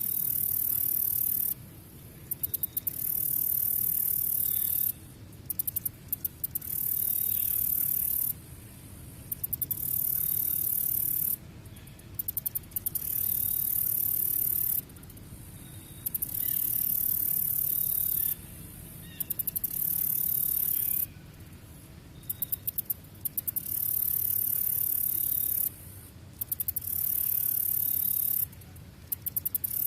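Cricket trilling at a very high pitch in repeated bouts of two to three seconds. Each bout starts as a stutter of separate pulses and runs into a continuous trill, with about a second's pause before the next. Faint short chirps are scattered lower down.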